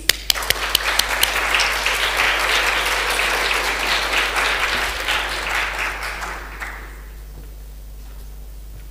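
Audience applauding. It opens with a few sharp claps close to the microphone, swells into steady applause and dies away about seven seconds in.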